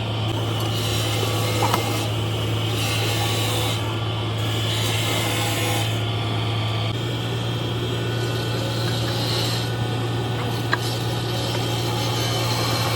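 Workshop tool work: repeated rasping, rubbing strokes over a steady low machine hum, with a couple of sharp clicks.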